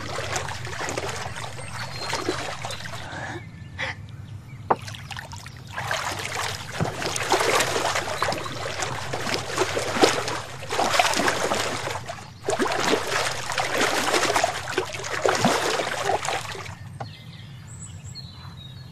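Water splashing and sloshing as a person swims through a pond, in long stretches of several seconds that die down near the end.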